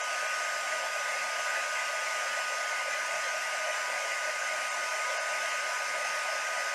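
Embossing heat gun running steadily, a blowing rush with a steady high whine, heating shrink plastic so that it shrinks.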